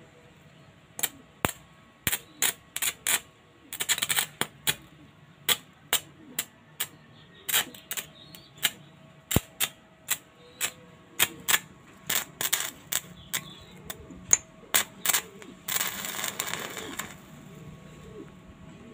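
Electric arc snapping and crackling as a welding rod held in pliers is tapped repeatedly onto a steel adjustable wrench, striking brief sparks. There are many short, sharp snaps at uneven intervals, with two longer crackling bursts, about four seconds in and near the end.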